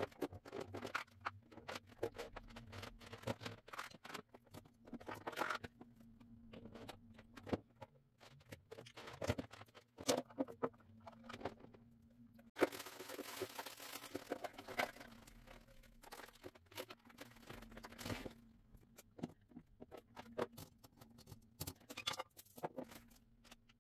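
Faint, scattered clicks, knocks and scrapes of plastic containers and kitchenware being handled and set down on shelves, over a faint steady hum.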